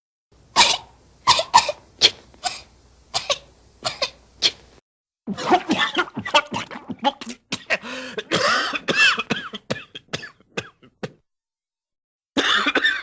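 Cartoon sound-effect coughing: a string of short, separate coughs, then after a brief pause a longer, denser coughing fit with voiced hacking that stops about eleven seconds in. Another cough effect starts near the end.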